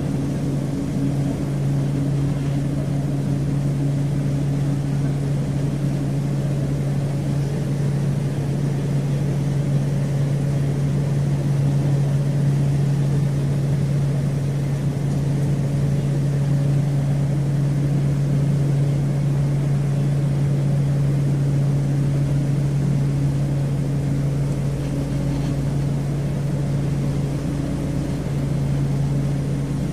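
Passenger airplane in flight: a steady low engine hum that holds without change.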